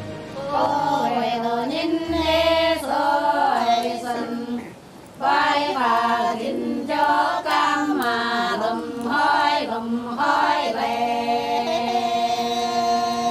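Dong women singing a folk song together, unaccompanied, with a short break about five seconds in and long held notes toward the end.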